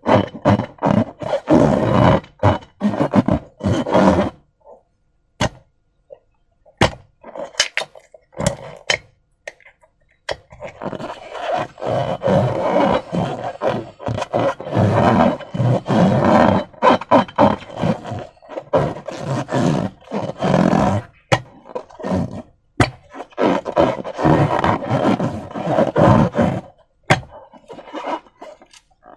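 Slime being squished and worked by hand, making wet, sticky squelching in irregular runs lasting several seconds. After about four seconds there is a pause of several seconds with only a few sharp clicks, then a long run of squelching, and a few more clicks near the end.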